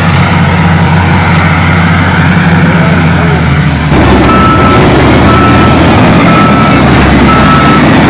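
Shantui wheel loader's diesel engine running, growing louder about halfway through as the loader backs up, with its reversing alarm beeping about once a second from then on.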